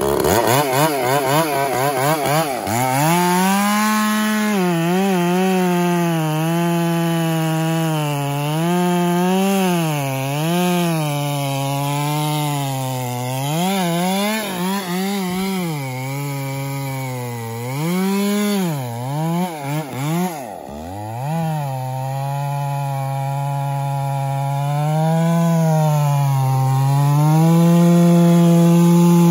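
Two-stroke Stihl chainsaw cutting through a large pine log, running at high revs with its pitch wavering up and down as the chain loads in the wood. About two-thirds of the way through it dips sharply a few times before picking back up.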